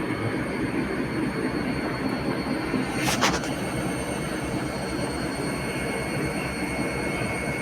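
Washing machine running: a steady mechanical noise with a thin high whine, and a brief knock about three seconds in.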